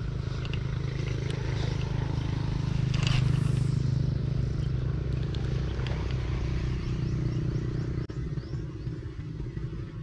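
A motorcycle engine running steadily, loudest about three seconds in and fading near the end, with a few light clicks over it.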